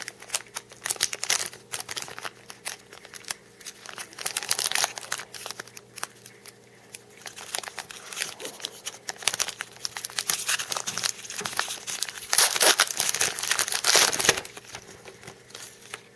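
Trading-card pack wrapper being torn open and crinkled, with cards handled, in irregular crackles that get louder and denser about three-quarters of the way through.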